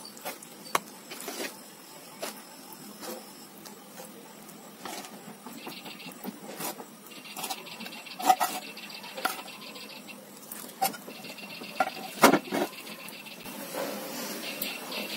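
Steel serving spoon clinking and scraping against a pan and a ceramic bowl as kofta curry is ladled out, with soft wet squelches of thick gravy. The clinks are irregular, the loudest about 8 and 12 seconds in.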